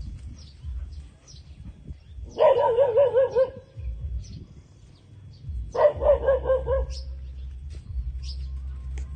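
A dog giving two wavering, warbling howl-like whines, each a little over a second long, a few seconds apart.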